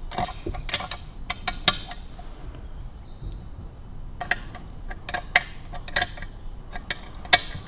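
Scattered small metal clicks and clinks of a spanner and other hand tools working the oil pump fastenings on a Harley-Davidson WLC crankcase. The clicks come in two runs with a pause between, and the sharpest comes near the end.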